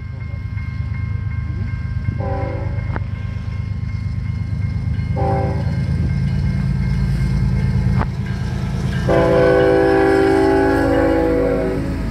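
Diesel freight locomotives approaching and passing, engines rumbling and growing louder, while the lead locomotive sounds its air horn as a chord of several tones: two short blasts about three seconds apart, then a long blast about nine seconds in.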